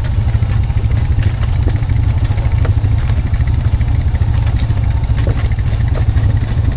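Honda Foreman 520 ATV's single-cylinder engine running at low speed with a steady low rumble while towing a log on a skidding arch. Scattered clanks and rattles run throughout.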